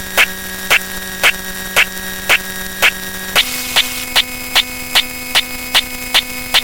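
Synthetic counting sound effects: a steady electronic buzzing tone with a sharp click about twice a second. Just over halfway through, the tone steps up in pitch and the clicks quicken to nearly three a second.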